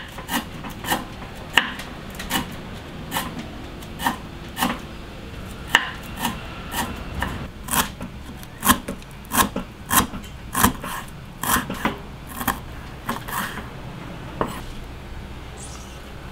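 Cleaver slicing lemongrass thinly on a wooden chopping board: irregular knocks of the blade on the wood, about one or two a second. The knocks thin out near the end.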